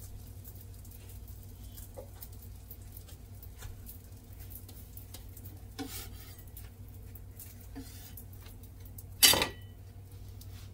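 Kitchen utensils and cookware knocking and clinking during hand work on dhal puri, with one sharp, loud clatter about nine seconds in, over a steady low hum.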